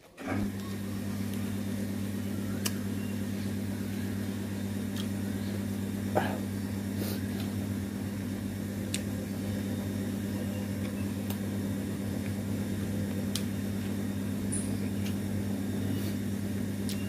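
A steady low machine hum that starts abruptly and holds evenly, with a few faint clicks over it.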